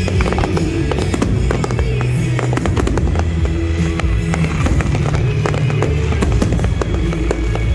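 Aerial firework shells bursting in quick succession, with music playing underneath.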